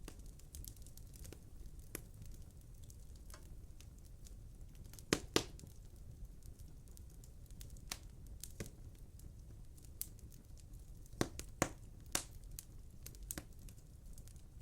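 Wood fire crackling in a fireplace insert: irregular sharp pops over a low steady rumble, with a few louder pairs of pops about five seconds in and again near eleven to twelve seconds.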